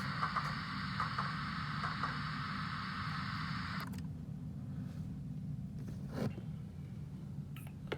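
The small speaker of a Roco BR 232 H0 model locomotive's sound decoder plays a steady, hissy engine sound that cuts off suddenly about four seconds in as the sound is switched off. A low hum continues underneath, with a faint click a couple of seconds later.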